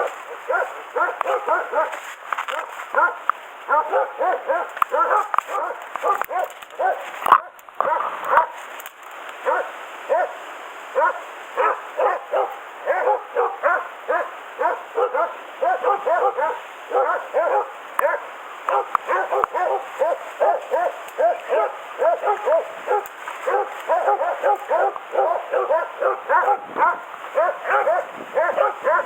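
Hunting beagles baying without let-up, about two to three barks a second: a bay at a wild boar held in its bed. A sharp knock and a brief break come about seven seconds in.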